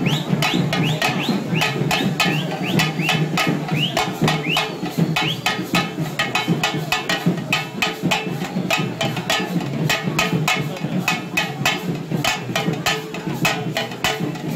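Procession drumming: fast, loud drum strikes several times a second that carry on without a break, with crowd voices underneath.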